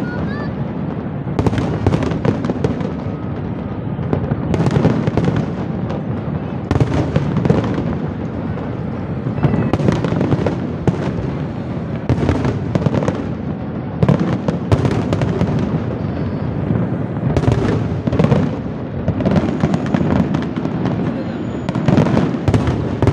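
Aerial fireworks display: shells bursting in a rapid, continuous barrage, a sharp bang every second or so over a dense rumble of overlapping bursts.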